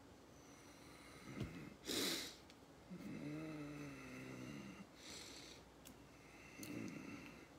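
A man's breath and mouth sounds: a sharp puff of breath about two seconds in, then a low wordless hum lasting nearly two seconds, and softer breaths near the end.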